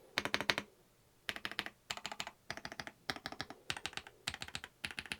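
Typing on an AJAZZ AK870 gasket-mounted wireless mechanical keyboard: quick clusters of keystroke clicks about every half second, after a brief pause near the start. The keys are dampened and not too loud.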